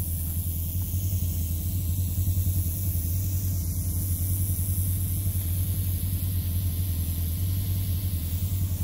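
A steady low engine rumble that pulses rapidly and evenly, with a faint high hiss over it.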